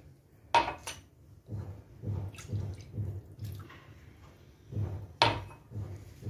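Milk poured from a glass into a glass mixing bowl of semolina, with sharp clinks of glass on glass about half a second in and again about five seconds in.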